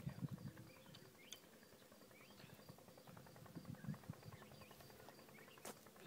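Faint rural outdoor ambience: a fast insect-like ticking with a few short high chirps. A few low thumps come near the start and again about four seconds in, and a single sharp click comes near the end.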